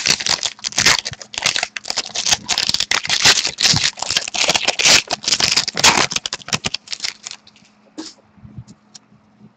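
A hockey trading card pack's wrapper being torn open and crinkled by hand, with dense crackling for about seven seconds, then a few scattered clicks as the cards are handled.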